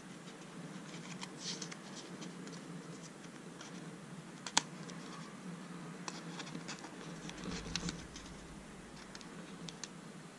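Faint scratching and light clicks of small paper stickers and backing sheets being handled, with one sharper click about four and a half seconds in.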